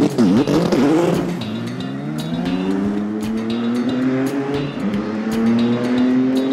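Two-seat IndyCar race car engine blipped up and down in quick revs, then pulling away with its pitch climbing steadily as it accelerates.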